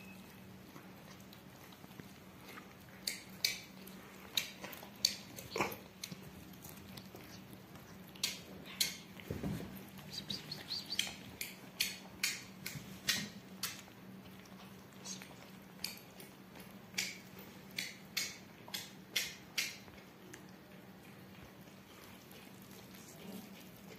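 Cats and kittens chewing and biting into roast chicken: a run of short, crisp smacking clicks, roughly one or two a second, over a faint steady low hum.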